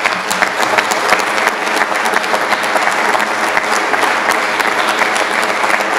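Audience applauding: a dense, steady clapping of many hands that starts suddenly and keeps on without a pause.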